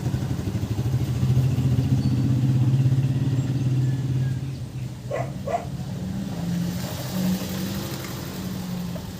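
A small vehicle engine, motorcycle-like, running steadily nearby and easing off after about four seconds. Two short pitched sounds come about five seconds in.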